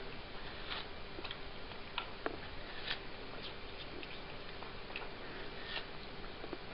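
A cat chewing and biting into a slice of watermelon: irregular soft clicks, about one or two a second, over a steady hiss.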